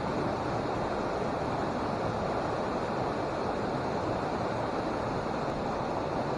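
Small mountain stream rushing, a steady even rush of water.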